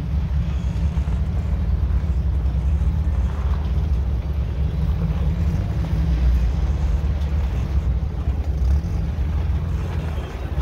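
Off-road 4x4 engine running at low speed, a steady low rumble while crawling down a rocky trail.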